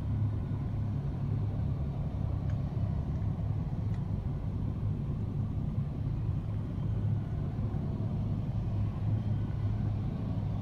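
V/Line diesel multiple unit passing, its diesel engines giving a steady low rumble.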